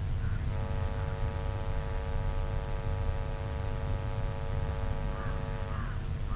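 A steady electrical hum on the launch range's communication audio, over a constant low rumble. The hum sets in about half a second in and stops shortly before the end, with faint snatches of voice near the start and end.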